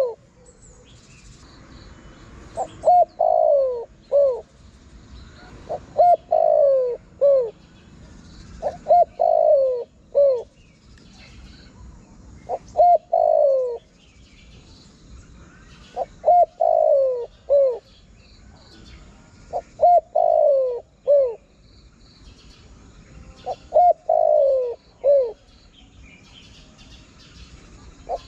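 Spotted dove cooing: a repeated phrase of a few short notes and a longer falling coo, given about seven times at intervals of roughly three to four seconds, with a longer pause in the middle. It is a lure call for drawing in wild doves.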